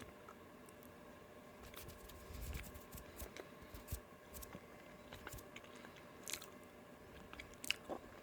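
Close-up eating sounds of soft, very squishy honey-flavoured dough balls being bitten and chewed: scattered faint mouth clicks and soft wet smacks.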